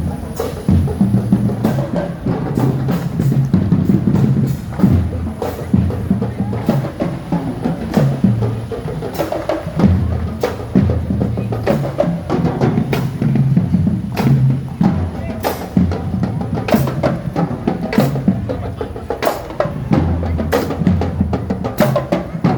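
Marching band playing, led by its drums, with many sharp stick clicks over low notes that change in steps.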